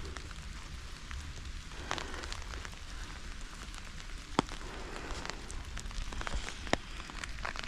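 Light rain falling steadily, with scattered sharp ticks of drops and a low rumble underneath.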